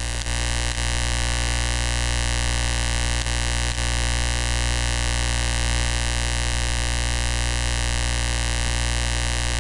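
Steady electrical hum with many overtones under a constant hiss, with a few faint mouse clicks.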